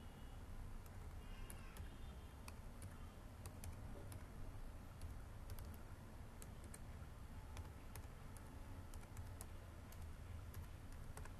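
Faint typing on a computer keyboard: irregular, separate key clicks over a steady low hum.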